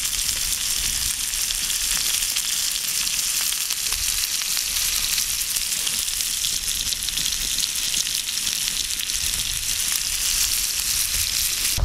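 Bacon sizzling in aluminium camp frying pans on a grate over a wood campfire: a steady hiss with fine crackling pops throughout.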